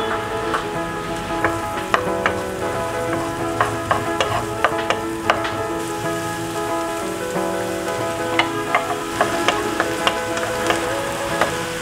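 Diced onions sizzling in a nonstick pan. A wooden spoon stirs them, clicking and scraping against the pan many times. Soft background music with sustained notes plays underneath.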